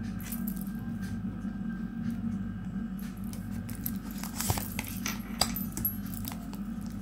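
A fanned deck of Casanova Tarot cards being handled, with scattered sharp clicks and rustles of card edges, the loudest about four and a half and five and a half seconds in. A steady low hum runs underneath.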